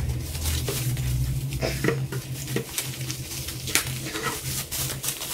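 Plastic bubble-wrap packaging rustling and crinkling as a black metal bicycle rear carrier is pulled out of it, with a few light knocks of the rack against the table or packaging.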